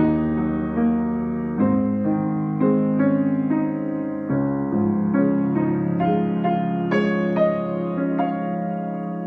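Solo piano playing a slow, sustained passage: a new note or chord struck every half second to a second over ringing earlier notes, the playing gradually getting quieter and ending on a held chord near the end.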